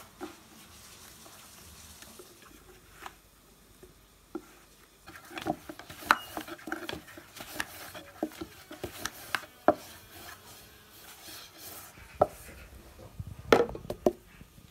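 Irregular soft knocks and taps of a wooden rolling pin and hands on a wooden pastry board as thin dough sheets are rolled out and handled, with a cluster of louder knocks near the end.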